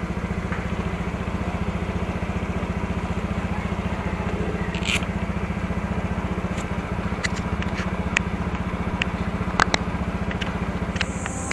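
Honda scooter's single-cylinder engine idling steadily while parked, with a scatter of light clicks in the second half.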